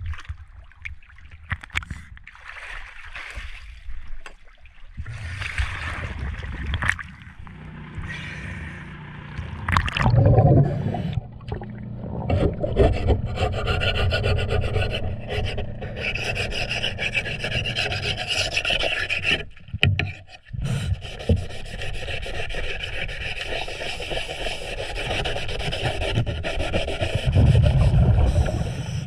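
Scraper and sandpaper rubbing over the metal trim tab underwater, scraping off the old anode's slag to bare metal so the new zinc anode makes solid metal-to-metal contact. The scraping is irregular at first and turns steady and continuous after about twelve seconds, with a couple of louder low rumbles about ten seconds in and near the end.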